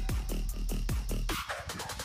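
Electronic dance music with a steady four-to-the-floor kick drum and hi-hats; near the end the beat drops out under a rising noise sweep.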